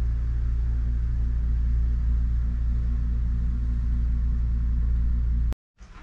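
Steady low rumble with a faint hiss above it, cutting off suddenly near the end.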